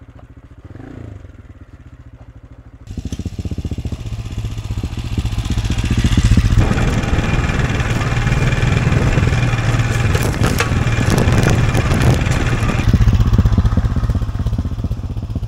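AJP PR7's single-cylinder engine running at low revs, then suddenly much louder from about three seconds in as the bike pulls up a rocky trail. A few sharp knocks of stones near the middle.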